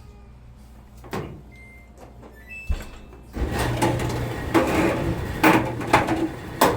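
Samsung dryer started up: two short beeps, then about three and a half seconds in the drum motor starts with a steady hum and the tumbling drum clatters and knocks. The clatter comes from bits of plastic and a lint ball loose inside the drum.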